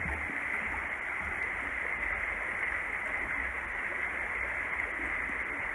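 Steady rushing of a creek flowing under a wooden footbridge, with a low uneven rumble underneath.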